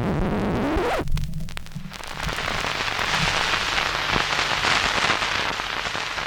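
Intro of a disco track: a gliding tone that sweeps up in the first second, then a dense crackling, rain-like noise that swells over low sustained bass notes before the beat comes in.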